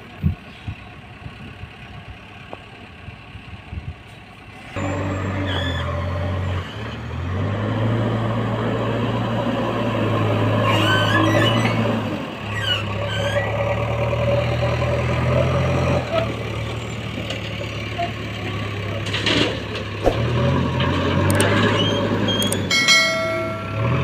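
Heavy diesel engines of tipper trucks and a backhoe loader running steadily, starting about five seconds in after a quieter stretch with a few clicks. Near the end a brief higher tone sounds over the engines.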